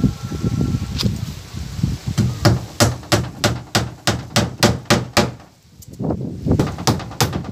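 Claw hammer driving nails through a plywood panel into a wooden boat-cabin frame: steady sharp blows about three to four a second, with a brief pause a little before the end.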